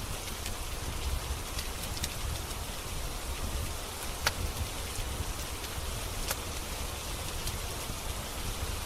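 Steady rain with a deep low rumble underneath, and the occasional sharp pop of a wood fire crackling in a fireplace, the loudest about four seconds in.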